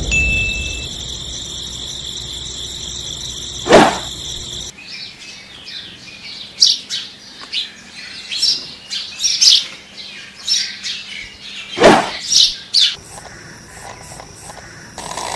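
Small birds chirping in short high calls, one every second or so after the first few seconds, over a faint steady hiss. Two sharp knocks are heard, one before the chirping starts and one in the middle of it.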